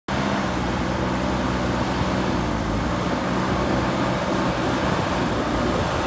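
JCB backhoe loader's diesel engine running steadily while the front loader bucket pushes into a pile of soil.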